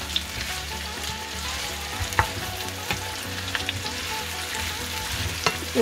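Sliced green banana and onion sizzling in hot oil in a nonstick frying pan, stirred with a wooden spatula that clicks against the pan a few times.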